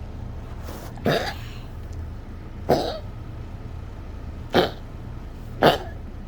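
Yorkshire terrier with a collapsing trachea coughing in a fit: four short, separate coughs, one every one to two seconds, the last the loudest. The coughing is the sign of her collapsing trachea.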